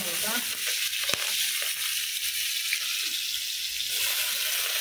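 Chopped carrots and green vegetables sizzling steadily in hot oil in a steel wok, just tipped in, with a wooden spatula stirring them and a few light scrapes.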